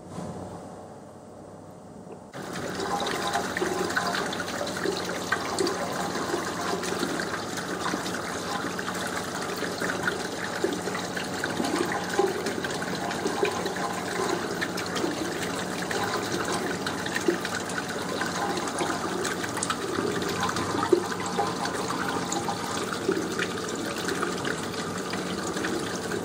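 Water running and splashing steadily, starting suddenly about two seconds in.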